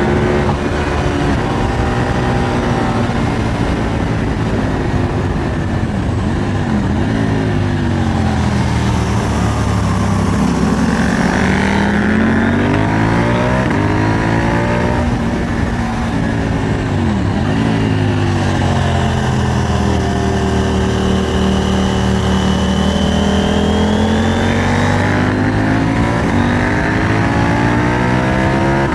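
KTM 890 Duke R motorcycle engine under way, its revs rising and falling repeatedly, with two quick drops in pitch about seven and seventeen seconds in.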